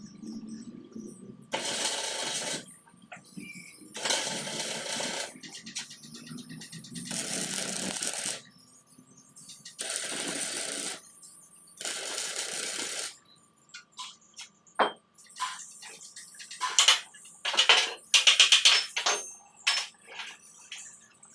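Several separate bursts of crackling noise, each lasting about a second, then a run of sharp metallic clicks and clinks in the second half.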